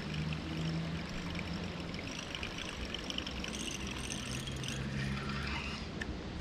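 Water trickling and flowing through a small spillway, with a steady low hum underneath.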